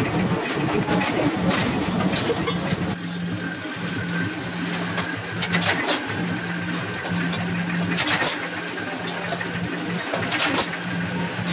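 Belt-driven flywheel power press running with a steady motor hum, striking sharply about every two and a half seconds as an iron pan is pressed at its die.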